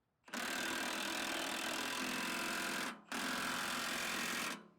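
Impact wrench hammering in two bursts, the second shorter, tightening a nut.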